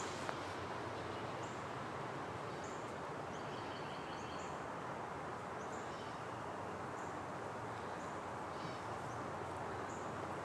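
Outdoor nature ambience: faint, short, high bird chirps scattered over a steady background hiss.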